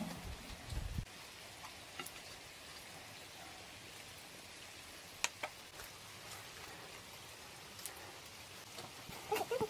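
Faint, steady outdoor hiss with a few scattered light clicks and taps, the sharpest about five seconds in and a small cluster near the end.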